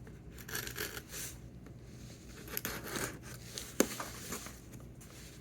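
A package being handled and slit open with a knife: scattered scrapes, rustles and tearing, with one sharp click about four seconds in.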